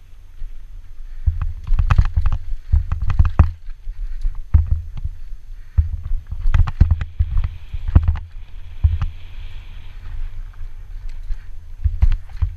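Banshee Darkside downhill mountain bike ridden fast over rough trail: tyres and suspension rumble over the bumps, with frequent clattering knocks from the bike and wind buffeting the camera microphone.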